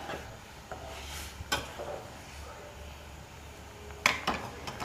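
A metal ladle stirring simmering curry in an aluminium pot, with a few scattered clinks against the pot, then a quick cluster of knocks about four seconds in.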